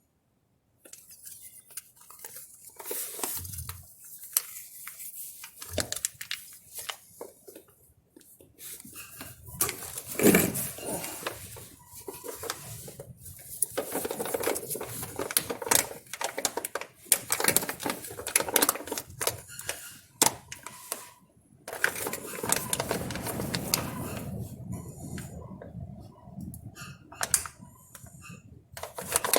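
Irregular clattering, knocking and rustling as a plastic gear-oil squeeze pack is handled and squeezed to refill a Dana 50 front axle.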